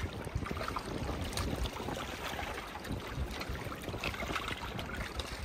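Gusty wind buffeting the microphone, over a steady hiss of rain and rushing river water.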